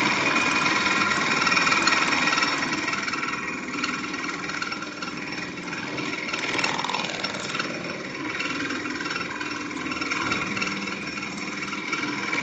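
Computerised pattern sewing machine running steadily as it automatically stitches a trouser pocket pattern.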